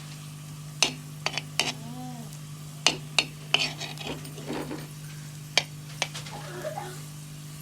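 A metal spoon clinking and knocking irregularly against a pan while garlic and ajwain are stirred in hot mustard oil, with a faint sizzle underneath.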